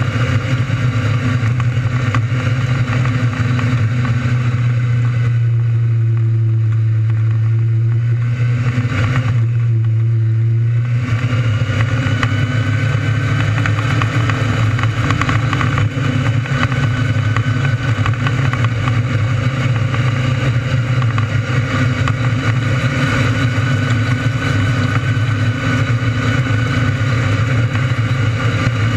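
A 600cc micro sprint car's motorcycle engine running at race speed, its note loud and nearly steady in pitch, with a smoother, cleaner stretch between about five and eleven seconds in.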